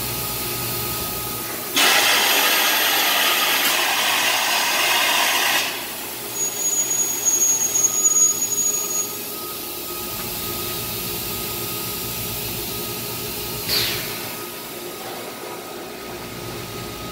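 Industrial machinery running with a steady hum. A loud rushing hiss starts suddenly about two seconds in and lasts about four seconds. A high whine follows that swells and fades unevenly, and a short falling burst comes near the end.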